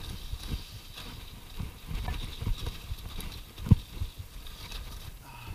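Mountain bike rattling and knocking as it descends a rough, rocky trail: an irregular run of thuds from the wheels and frame over bumps, with one hard knock just before four seconds in.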